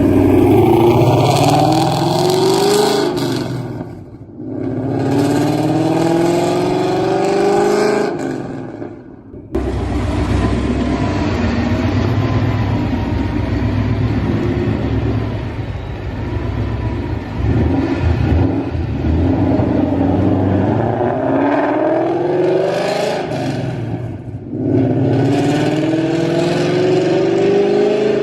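Ford Mustang GT V8 with long-tube headers, off-road X-pipe and Corsa Extreme exhaust, accelerating hard, its pitch climbing through two pulls with a short dip between them. Then an abrupt change to a steadier, wavering engine sound, and near the end another rising pull.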